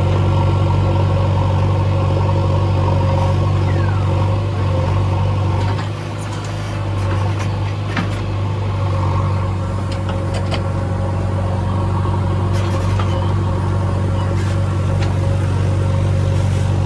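Heavy diesel machinery engine running steadily with a deep hum. It eases off briefly about six seconds in and then comes back up. Occasional short knocks and clicks are heard over it.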